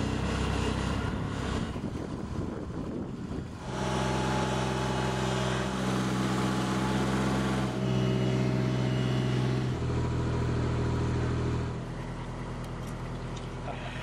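Engine of a Platform Basket 27.14 tracked spider lift running steadily, its speed and pitch shifting several times, then settling to a lower, quieter run near the end.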